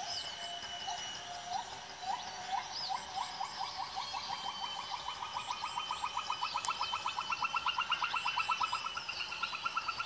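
Rainforest ambience: an animal repeats a short upslurred call, slowly at first, then speeding up into a rapid run of about eight a second while creeping slightly higher in pitch. Under it is a steady high-pitched ringing, with a few faint chirps.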